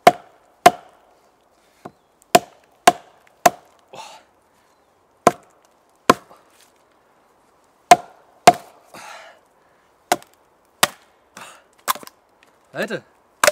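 A wooden baton striking the spine of an Eickhorn KM2000 combat knife, driving the blade down through a log about 10–11 cm across. It makes about fifteen sharp, irregular knocks, roughly one a second, each with a short ring.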